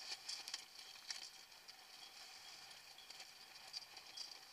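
Faint hiss of water rushing past a sailing dinghy's hull, with many short sharp ticks of spray spattering.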